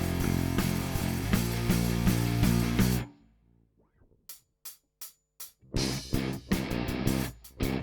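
Lakland Skyline 44-64 GZ PJ electric bass with passive EMG GZR-PJ pickups, recorded through a preamp set flat. A busy run of notes stops dead about three seconds in. After a quiet gap with a few faint ticks, it comes back with short, sharply attacked notes.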